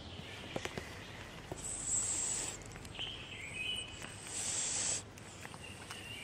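Cats eating dry kibble from a plastic tub: scattered small crunching clicks, with two short bursts of hissy rustling and a few brief high chirps.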